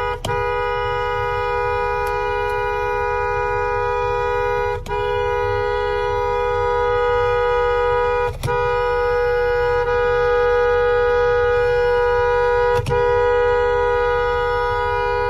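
Car horn held down in long continuous honks, a steady two-tone blare heard from inside the car, released for an instant only three or four times.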